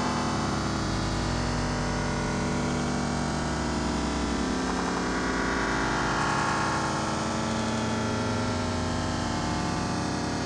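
Thick, steady synthesizer drone: many held tones layered over a wash of noise.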